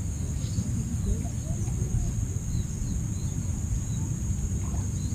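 A steady high drone of insects with scattered short bird chirps, over a constant low rumble.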